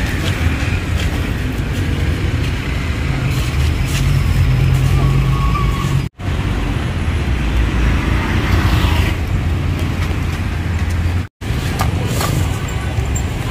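Steady road traffic from passing vehicles, a low rumble that cuts out for an instant twice.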